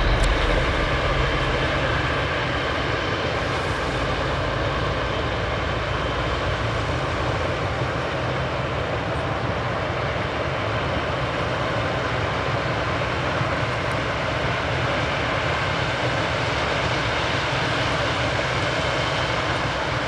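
Large harvest machinery running steadily: a continuous, even mechanical noise of engine and drive with no change in pace.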